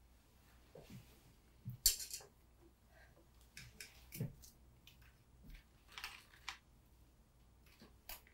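Forks clinking and scraping on ceramic dinner plates in scattered short clicks, with one louder clink about two seconds in.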